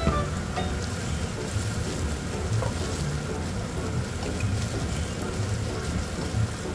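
Stir-fry ingredients sizzling steadily in an oiled frying pan.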